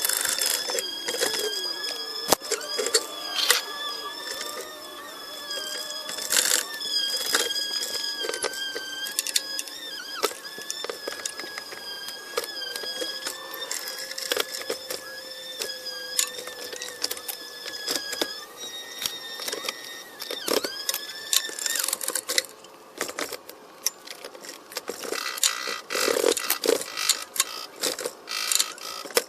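Hand tools clicking and clattering during engine work, over a steady, slightly wavering whine that stops a little over two-thirds of the way in.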